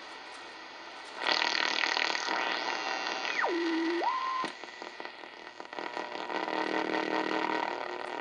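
R-390A tube communications receiver being tuned across a low shortwave band through its loudspeaker: hiss, then about a second in a loud rush of static with a heterodyne whistle that slides down in pitch and back up as the dial crosses a signal, cutting off suddenly a few seconds later. After that, quieter static with a weak, steadily pitched signal coming through.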